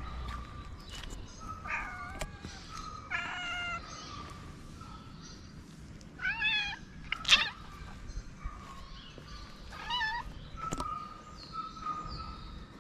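Stray cats meowing several times, short bending calls with pauses between them, and a brief sharp loud sound about seven seconds in.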